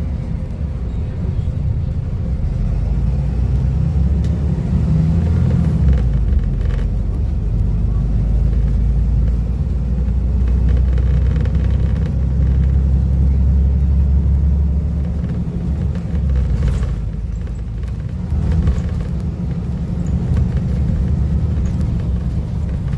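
Volvo B250RLE Euro V bus's diesel engine running with a deep rumble. It swells for several seconds, eases off about two-thirds of the way through, then builds again.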